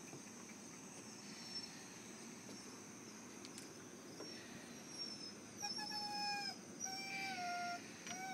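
A dog whining in long, high, drawn-out cries over a faint steady background. Two cries come about a second apart, starting about five and a half seconds in, and a third begins near the end.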